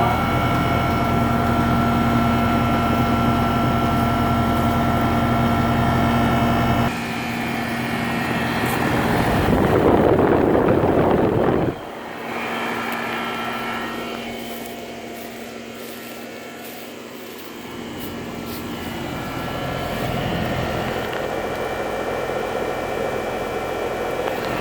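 A 2002 Trane XB10 5-ton heat pump outdoor unit starting up. It gives a steady mechanical hum with fixed tones, then a rush of noise builds and cuts off suddenly about twelve seconds in. After that it runs more quietly and slowly builds again. The fan motor doesn't sound too healthy.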